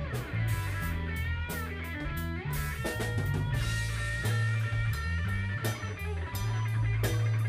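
Live rock band playing an instrumental passage: electric guitar over bass guitar and drum kit with cymbal hits. The guitar line bends and slides in pitch over a steady low bass line.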